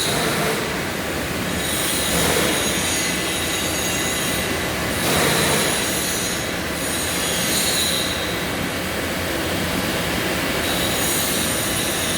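Steady industrial machinery noise: a dense rushing hiss with thin, high whining tones over it and slow swells in level, as from the CNC vertical turret lathe running on a shop floor.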